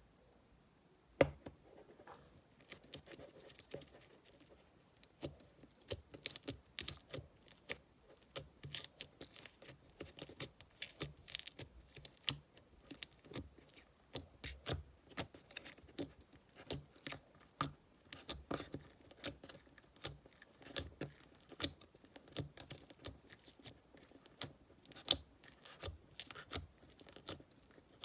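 Slime being pressed, stretched and squeezed by hand: an irregular run of sticky clicks and small pops, starting about a second in.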